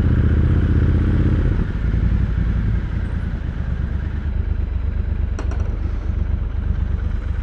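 Triumph Scrambler 1200 XC's 1200 cc parallel-twin engine running through an Arrow slip-on exhaust while riding. It is loud and steady at first, then eases off about a second and a half in and runs on at a lower level.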